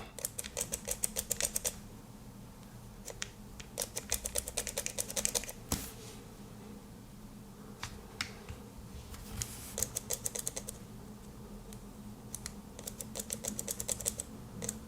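Mechanical pencil's push-button end clicked rapidly in short runs of many clicks, with pauses between runs, as the lead is advanced and pushed back in.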